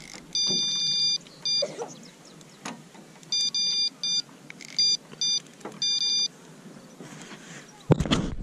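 Electronic carp bite alarm on a rod pod sounding in irregular bursts of high beeps, some single and some run together into a quick trill. This is a run: a carp has taken the bait and is pulling line. A loud knock near the end.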